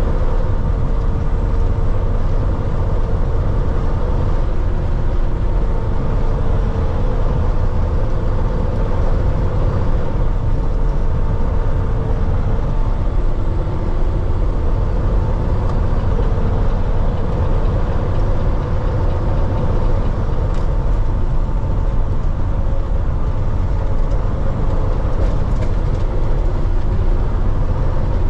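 Heavy Peterbilt 389X tow truck's diesel engine droning steadily at highway cruise, heard from inside the cab with road and tyre noise.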